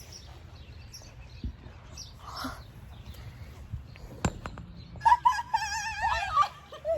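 A person's high, wavering shriek, its pitch wobbling, lasting about a second and a half from about five seconds in, after a sharp click a little after four seconds.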